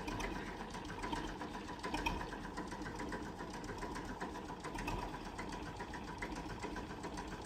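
Steady, rapid mechanical clatter with a faint steady hum, from a running machine.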